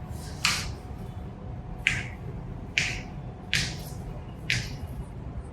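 A patient's joints cracking during a chiropractic adjustment: five sharp pops about a second apart, like small firecrackers.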